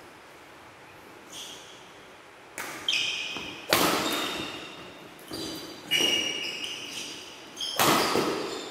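Badminton doubles rally: rackets striking the shuttlecock in about six sharp hits, starting a couple of seconds in, each echoing in a large hall. A short high squeak, like a shoe on the court, comes about a second in.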